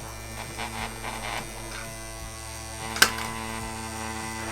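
Small electric motor in an Oops Scoops toy ice-cream cone humming steadily as it wobbles the cone, with faint plastic clicks and one sharp click about three seconds in.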